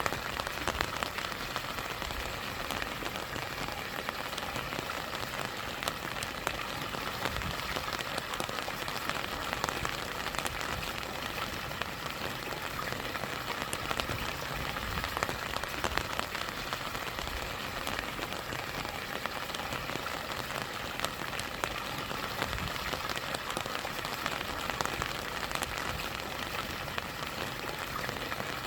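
Steady rain with many individual drops ticking, over the continuous rush of a stream spilling down a small waterfall.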